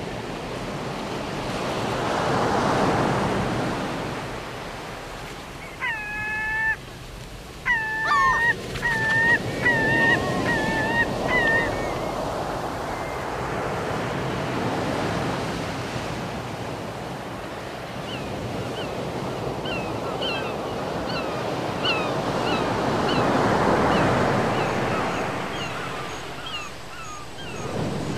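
Sea surf breaking and washing against the shore below, the noise rising and falling in slow swells. About a quarter of the way in come a series of high whining calls, each with several tones; short high chirps follow later.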